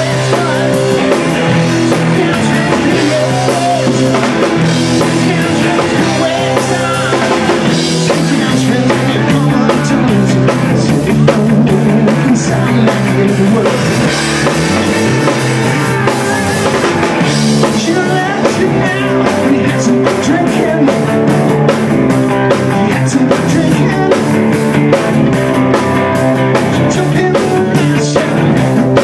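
Live rock band playing loudly: electric guitars, bass guitar and drum kit, with a steady stream of cymbal hits.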